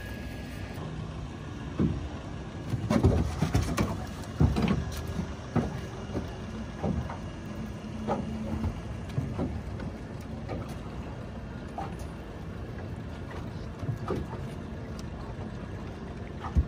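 Steady low hum of a boat running at trolling speed, with a run of sharp knocks and thumps, thickest from about two to six seconds in, then scattered.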